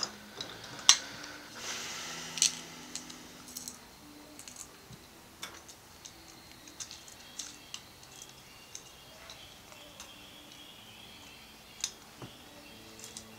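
Small M2.5 screws, spring washers and flat washers clicking and clinking as fingers handle them and fit them into a plastic printed extruder body. Sharp clicks are loudest about a second and two and a half seconds in, with a brief scraping rustle between them, then only scattered light ticks.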